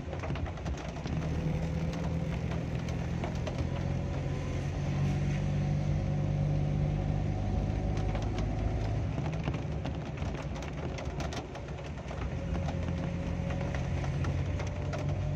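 Car engine running steadily while the car is driven, heard from inside the cabin. Its low note shifts up and down a few times, with scattered light clicks over it.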